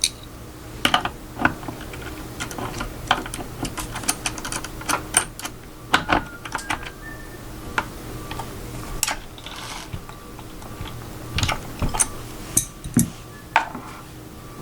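Light metallic clicks and clinks at irregular intervals as a jam nut is threaded onto a Tavor rifle's barrel adapter and tightened with a wrench, with a closer run of clicks near the end.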